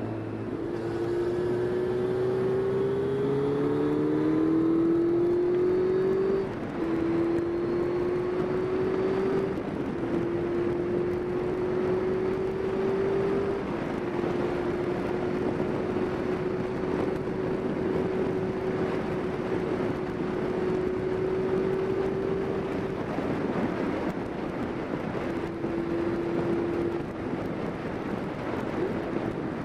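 Yamaha Fazer's inline-four engine running under way, heard from the rider's seat over a steady rush of wind. The engine note rises over the first six seconds, drops sharply, then holds fairly steady with a few small steps down.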